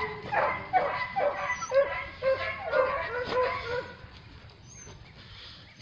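Several beagles giving rapid short whines and yelps, many overlapping, dying down about three and a half seconds in.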